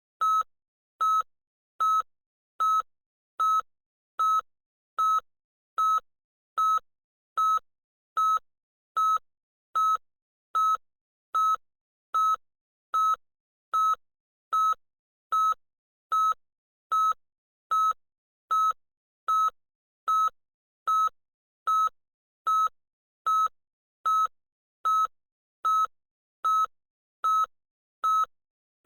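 Loud electronic beeping: one short beep of the same high pitch, repeated evenly a little more than once a second.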